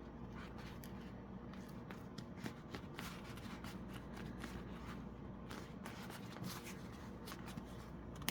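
Hands pushing and working a glue-wet repair cap onto the tip of a padded foam trainer, making faint, irregular rubbing and scuffing sounds with small clicks.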